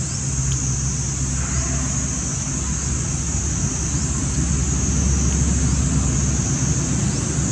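A steady low engine rumble, like a motor vehicle running nearby, with a constant high-pitched buzz above it.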